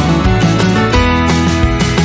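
Background music led by guitar, with notes plucked at a steady pace.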